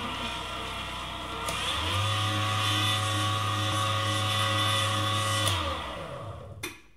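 Electric tilt-head stand mixer with a wire whisk running through cake batter, mixing in flour. Its motor hum rises in pitch and gets louder about two seconds in, holds steady, then winds down and stops near the end.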